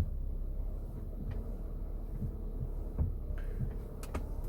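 Car steering turned to full left lock, giving a low steady hum and a few soft low thumps, with no clicking from the front shock absorber, which WD-40 sprayed on it has cured.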